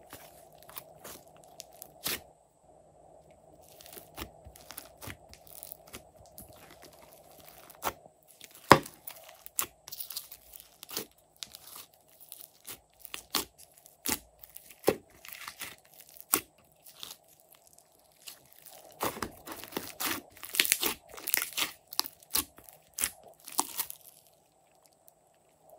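Slime being stretched, squeezed and kneaded by hand, giving off irregular sticky crackles and pops, densest a little past two-thirds of the way in.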